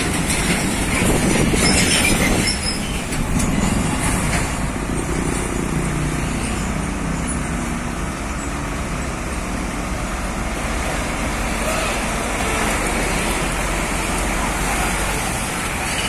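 Heavy diesel trucks hauling lowbed trailers passing on the road, their engines running steadily with the rumble of tyres and trailers; an engine note climbs about five seconds in.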